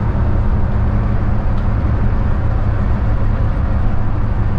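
Steady drone inside a Hyundai coach cruising on an expressway: a constant low engine hum under road and tyre noise, unchanging throughout.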